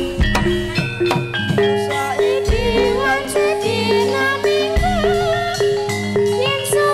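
Live Javanese jaran kepang accompaniment: gamelan-style pitched gong and metallophone notes repeat a short figure over hand drums. A high, wavering melody line joins about two seconds in.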